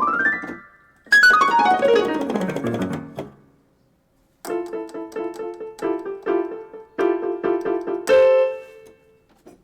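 Yamaha PSR-E363 portable keyboard being played: a fast run up the keys ending just as it starts, a run back down, a short pause, then a chord struck over and over quickly, finishing on one chord left to ring out.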